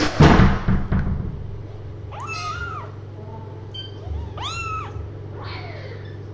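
A loud rustling clatter in the first second, then kittens meowing: two high calls that rise and fall, about two and four and a half seconds in, and a fainter one after.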